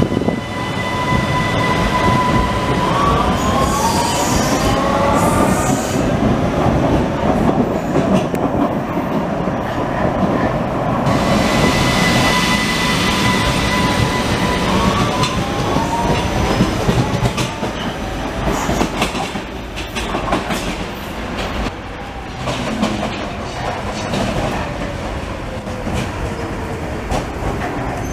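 Vienna U-Bahn metro trains pulling out of a station: over the rumble and clatter of the wheels, the drive gives a whine of several tones that rises in steps as the train speeds up, heard twice. Later a train runs in more quietly, with a low tone that slowly falls as it slows.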